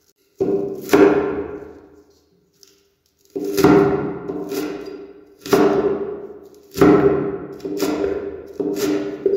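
A large knife chopping through bunched green herb stalks onto a wooden cutting board: about ten unhurried single chops, each a sharp knock that rings and dies away over about a second, with a short pause after the first two.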